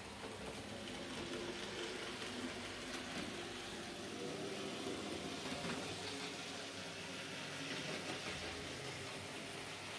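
N-scale model train, a diesel locomotive pulling freight wagons, running along the track: a faint, steady hum of its small electric motor with wheel noise over the rails.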